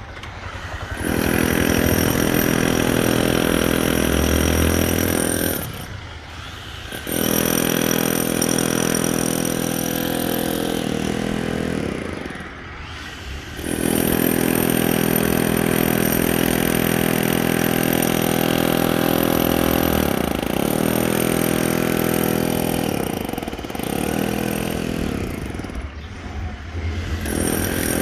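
Electric demolition hammer breaking concrete, its rapid hammering running in stretches of several seconds broken by short pauses.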